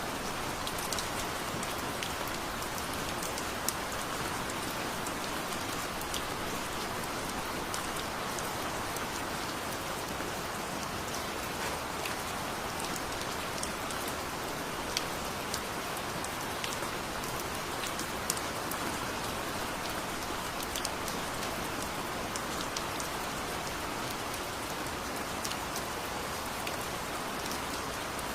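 Steady heavy rain falling, an even hiss with scattered sharp clicks of individual drops striking nearby.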